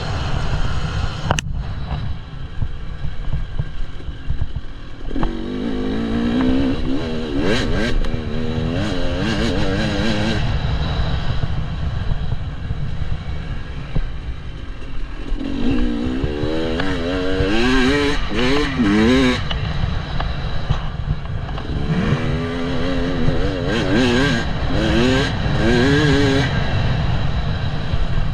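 KTM 300 EXC single-cylinder two-stroke enduro engine being ridden, its revs rising and falling through the throttle in three spells, over a steady low rumble.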